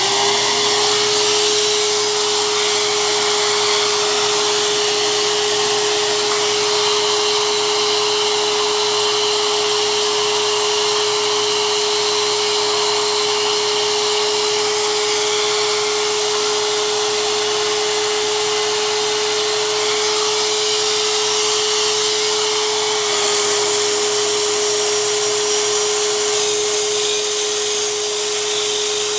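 Hyper Tough mini circular saw running at full speed with a steady high whine. About 23 seconds in it gets louder and harsher and its pitch dips slightly, the blade coming under load.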